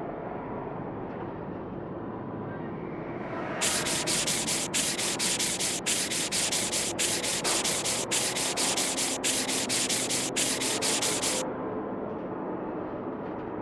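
Cartoon sound effect of rapid rubbing strokes, like sanding or scrubbing a car body. It sets in about three and a half seconds in as about seven rasping bursts of roughly a second each, and stops near the end, over a quiet steady background.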